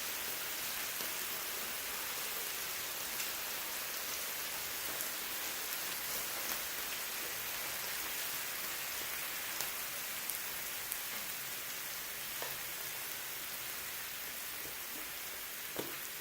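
Thin-sliced lamb sizzling steadily on a grill, with a few faint clicks.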